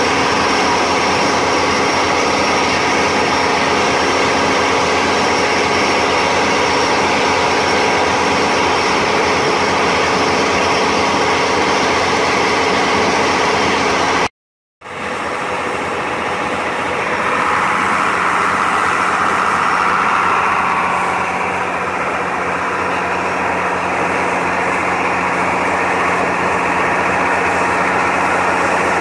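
Motorboat engine running steadily at cruising speed, with water rushing past the hull. The sound cuts out for a moment about halfway and comes back duller.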